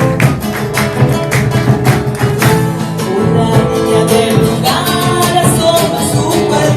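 Argentine folk music, a gato, played live: strummed guitars with a steady beat, and a voice singing over it in the second half.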